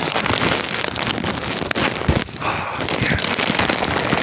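Wind-driven sleet and ice pellets crackling against the microphone and clothing in a steady, dense patter, with wind buffeting the microphone.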